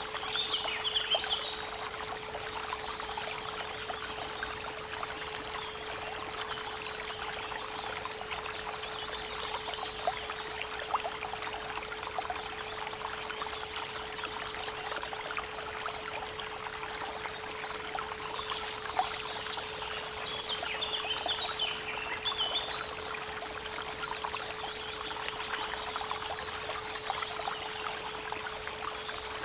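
Creek water running steadily, with birds chirping and trilling now and then, most around twenty seconds in. Under it a steady 432 Hz pure tone hums throughout.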